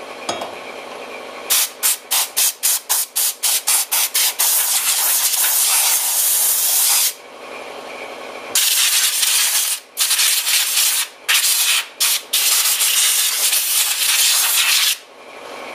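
Compressed-air blow gun blasting air over a brake drum to blow off brake dust and dry the brake cleaner. It opens with a string of quick short blasts, then turns to long hissing blasts with a few brief pauses.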